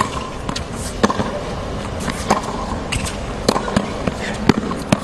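Tennis rally on a hard court: sharp racquet strikes and ball bounces, roughly one to two a second, over a steady background hush.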